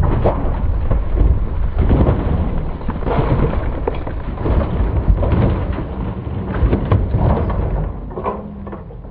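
A heavy Harley-Davidson touring motorcycle and its rider sliding off the road into a dirt embankment after a lowside crash: scraping, gravel and irregular thuds over a continuous low rumble, dying down about eight seconds in.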